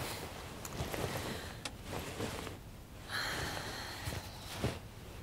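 Rustling of clothing as a coat and scarf are handled, with a few soft clicks and footsteps. A longer rustle comes about three seconds in.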